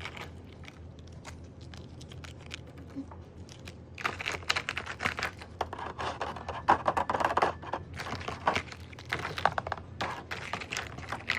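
Plastic wrapping of a chocolate decorating kit being handled and opened: faint scattered rustles at first, then dense crinkling and crackling from about four seconds in.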